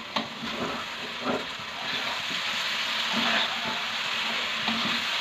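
Sweet potato cubes sizzling in a wok as a spatula stirs them. There are a few clicks of the spatula against the wok in the first second or so, and the sizzle grows louder about two seconds in.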